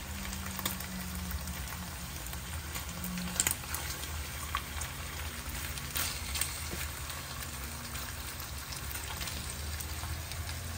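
Slices of sweet-cured pork tocino sizzling and crackling in oil in a nonstick frying pan, over a low steady hum. A couple of sharp clicks, about three and a half and six seconds in, come as metal tongs touch the pan while turning the meat.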